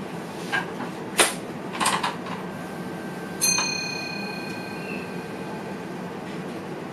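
Train driver's cab: several sharp clicks and knocks, the loudest a little over a second in, then a single bell-like ding about halfway through that rings on and fades over a second or so, over the steady running noise of the cab.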